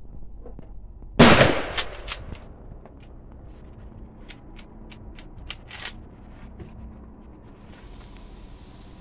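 A single loud shot from a Mossberg 500 pump-action shotgun about a second in, with a short echo trailing off over the following second. A few light clicks follow a few seconds later.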